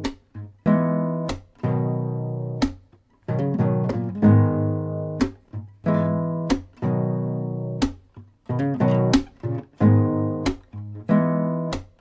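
Instrumental closing music of strummed guitar chords, each chord struck sharply and left to ring and fade before the next, about one strum every half second to a second.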